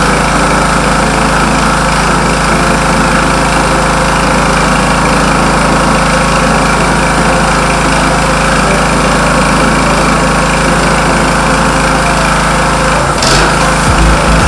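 Petrol generator engine running under load while a stick-welding arc from an inverter welder hisses and crackles steadily. About thirteen seconds in there is a single sharp crack, and the low hum changes after it.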